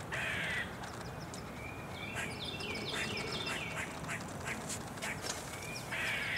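Wood ducks calling: a short hoarse squeal at the start and again near the end, and a quick run of high, falling peeps in the middle.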